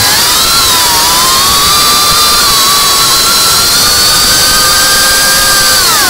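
FPV drone's electric motors and propellers whining, the pitch following the throttle: it rises shortly after the start, holds high, then drops sharply at the end.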